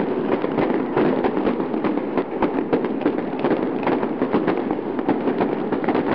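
Dense, unbroken crackling and popping with many small irregular pops.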